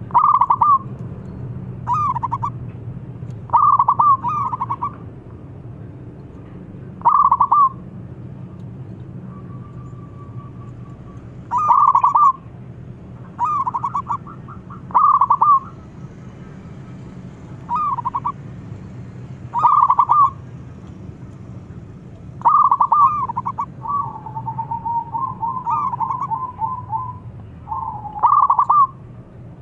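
Zebra dove (perkutut) singing: short, loud coos in bursts, one every one to three seconds, with a longer rolling run of coos about three-quarters of the way through.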